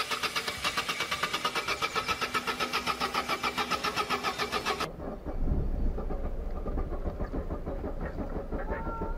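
Starter motor cranking an old small hatchback's engine in a quick, even rhythm of about five to six beats a second, stopping abruptly about five seconds in. A low rumble follows.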